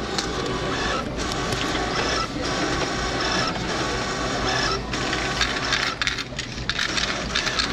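Self-checkout kiosk's receipt printer and coin dispenser running, with change coins dropping into the coin-return cup.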